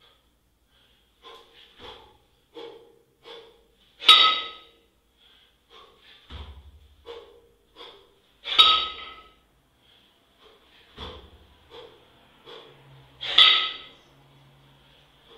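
Heavy, rhythmic breathing during double kettlebell jerks: a loud, sharp exhale about every four and a half seconds, three in all, with shorter breaths between them and a few low thumps.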